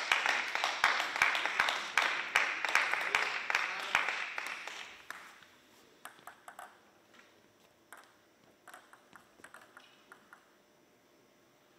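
Scattered clapping with many rapid claps that dies away about five seconds in. After that, a few light, sharp clicks of a table tennis ball being bounced as a player prepares to serve.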